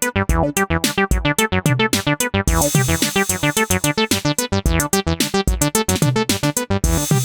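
A synthesizer bass line of rapid staccato notes, each opening with a plucky filter sweep. A high hiss, like hi-hats, joins about two and a half seconds in.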